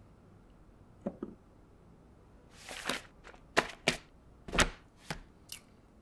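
A stack of paper handled on a desk, as an animation sound effect: two faint clicks, a short rustle, then several sharp taps of the stack knocked edge-down to square it, the loudest in the middle.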